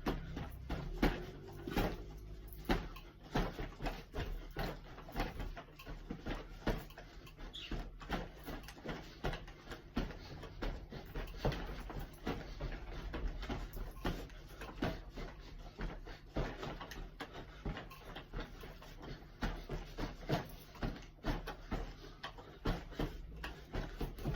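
Boxing gloves punching a pillow-padded vacuum cleaner handle: a run of dull, irregular thuds, several a second, over a low steady hum.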